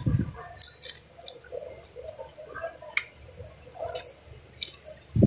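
Close-up eating sounds of pomelo: wet chewing and squishing, with scattered small clicks as the juicy segments are pulled apart by hand.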